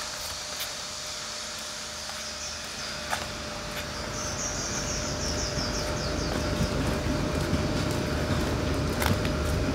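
Outdoor ambience with a steady hum and a few scattered clicks. From about four seconds in, a low rumble grows louder, with a quick run of high chirps around the same time.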